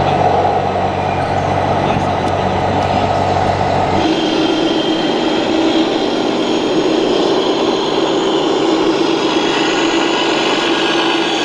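Engine sound of RC model trucks, a steady low drone. It changes abruptly about four seconds in to a different, higher-pitched steady drone.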